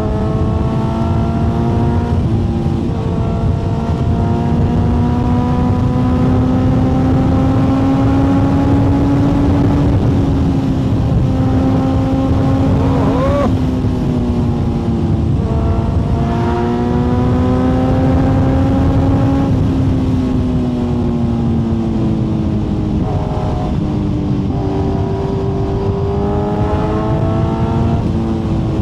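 Kawasaki Z900's inline-four engine through an Akrapovic exhaust under way, pulling through the gears: the engine note climbs steadily and drops sharply at each upshift, then winds down for a few seconds about two-thirds of the way through before pulling again. A steady rushing of wind and road noise runs underneath.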